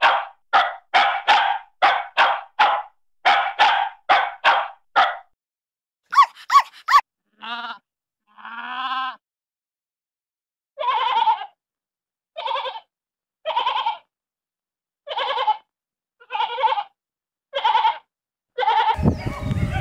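A string of animal calls from a sound-effects compilation. It opens with a quick run of short calls, about three a second, for five seconds. A few different short calls follow, then a slower series of separate calls, about one every second and a half. A different, noisier sound starts right at the end.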